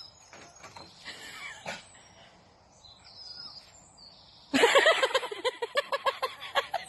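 A dog gives a rapid string of short, high barks, about five a second, starting a little past halfway; before that there are only faint bird chirps.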